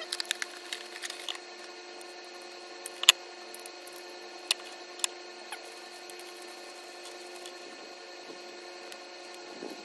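Light plastic clicks and knocks from handling a DMT DuoSharp diamond bench stone and its plastic base while fitting them together, with the sharpest knock about three seconds in. A steady hum runs underneath.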